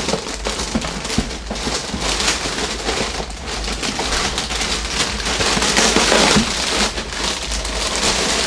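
Plastic packaging crinkling and rustling as a plastic-bagged model plane fuselage is worked loose and lifted out of its shipping box.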